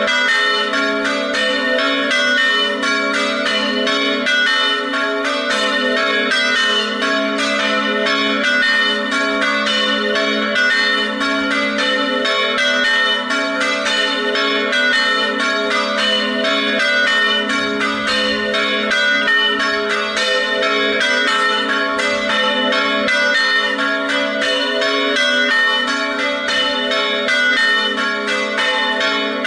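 Three church bells tuned to A, B and C-sharp (A3, B3, C#4) ringing together in a continuous festive peal, strokes following fast and overlapping so the bells keep sounding over one another.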